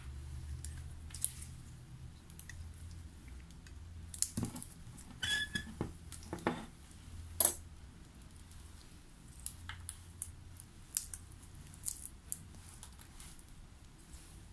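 Scattered light clicks, taps and scrapes of small metal dental waxing instruments being handled and worked, busiest in the middle with a sharp click about seven seconds in, over a low steady hum.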